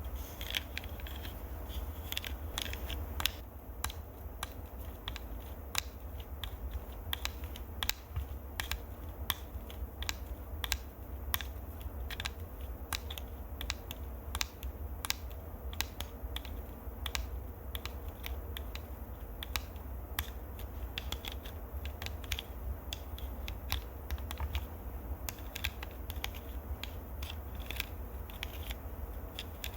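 Close-miked ASMR trigger sounds: quick, irregular clicks and taps, several a second, over a low rumble.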